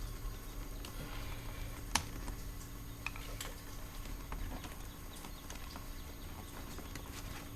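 Scattered light clicks and knocks of plastic car door-trim pieces being pried and handled with a screwdriver to release a retaining tab, with one sharper click about two seconds in.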